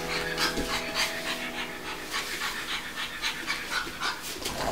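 Pug puppy panting in quick short breaths, about four a second, close by.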